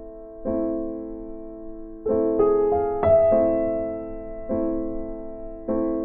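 Background piano music: slow chords struck every second or two, each fading away before the next.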